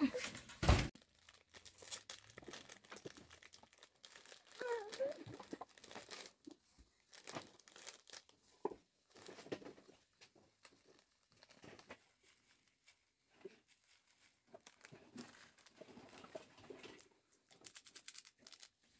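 Plastic food sachet crinkling and tearing as it is opened by hand, with scattered light clicks and rustles. There is a sharp thump just under a second in and a brief voice about five seconds in.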